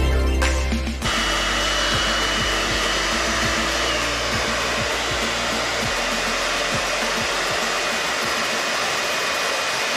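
Vacuum cleaner running steadily, an even rushing noise that takes over about a second in as the music cuts out.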